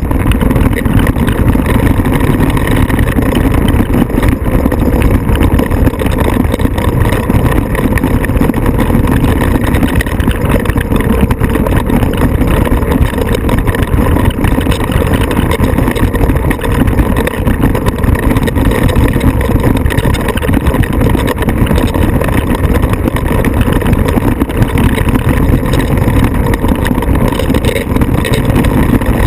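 Off-road vehicle engine running, loud and steady, with no pauses or clear changes in speed.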